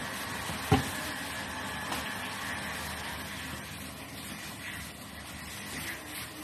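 Gloved hands kneading and patting soft mashed-potato dough on a wooden cutting board, over a steady background hum, with one sharp thump on the board about a second in.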